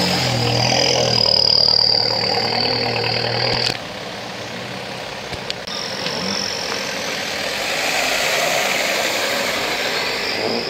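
Car engine idling with a steady low hum and a high whine; the sound drops abruptly a little under four seconds in, and quieter engine running follows.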